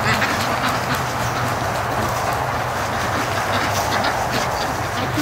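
Large flock of domestic ducks chattering and quacking together in a dense, steady din, with a low steady rumble underneath.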